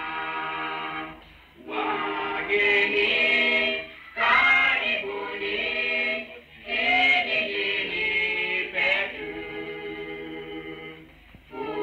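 A choir singing, in phrases of a few seconds with short breaks between them.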